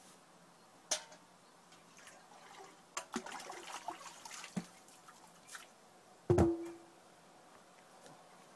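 Metal pail clattering against the well's wooden lid and rim and splashing as it is dipped into a hand-drawn well and filled with water, after a sharp knock about a second in. The loudest sound is a heavy thump with a short ring about six seconds in.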